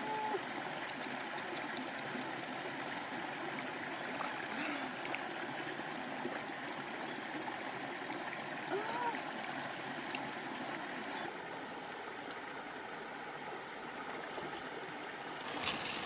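Shallow rocky stream flowing steadily, with light swishing and splashing of hands moving through the water along the streambed.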